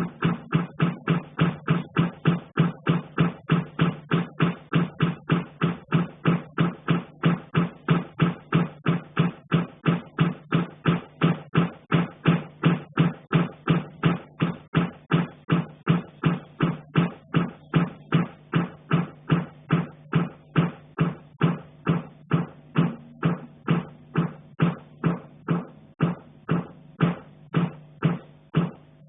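Steady, relentless knocking coming through from the attic above, about three dull thuds a second.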